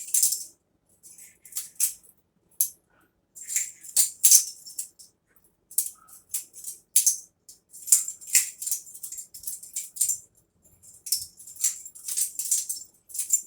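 Butterfly knives being flipped: quick clusters of metal clicking and rattling, with short pauses between runs.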